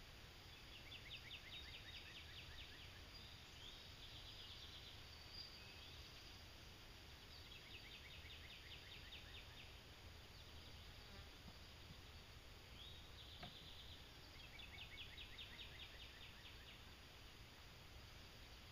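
Near silence: faint outdoor ambience. A high, rapid trill repeats three times, each about two seconds long, with a few shorter chirps in between.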